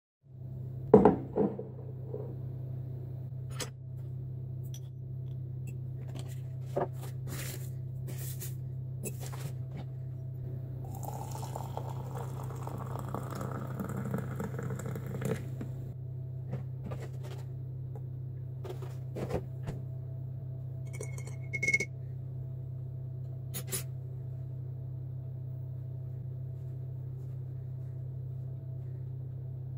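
Hot liquid poured into a ceramic mug for about four seconds, the filling sound rising in pitch as the mug fills. Scattered knocks and clicks of the mug and spoon on a worktop, the loudest about a second in, and a short ringing clink a little after two-thirds of the way through, over a steady low hum.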